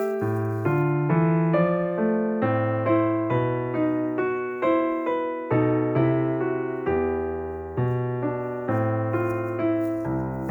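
Background piano music: a steady run of struck notes with a bass line, each note ringing and fading.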